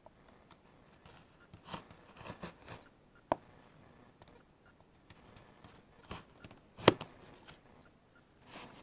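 Sharp knife cutting into a thin crate-wood board, giving irregular short crunches and cracks, with a sharp snap about three seconds in and the loudest crack about seven seconds in.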